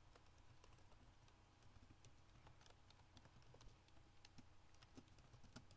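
Faint computer keyboard typing: irregular, quick keystroke clicks over a low steady hum.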